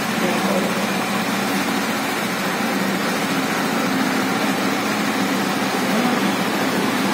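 KTM Duke 390 BS6's single-cylinder engine idling steadily.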